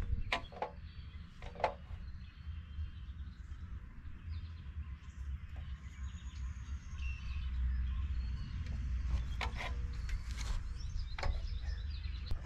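Low wind rumble on the microphone with faint bird chirps in the middle, and a few light clicks and taps as a straightedge and marker are handled on a stack of steel roof panels while the hole positions are laid out.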